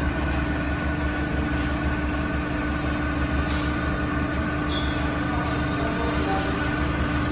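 Powder-coating spray booth running while a powder gun sprays a part: a steady machine drone with a constant mid-pitched hum under an even airy hiss.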